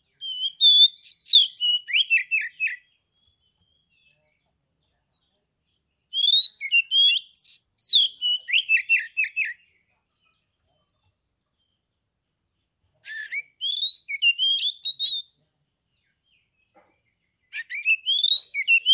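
Oriental magpie-robin (kacer) singing in four bouts of a few seconds each, separated by silences: quick whistled phrases and slurred notes, the first two bouts ending in a rapid run of falling notes.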